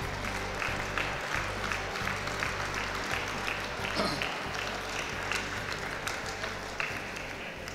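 Audience applauding, the clapping thinning out toward the end.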